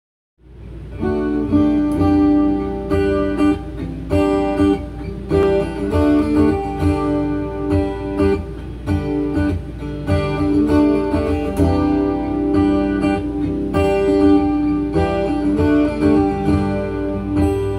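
Acoustic guitar strummed in a steady rhythm, played live through an effects and looper pedal board for a loop jam; it fades in over the first second, with a steady low hum underneath.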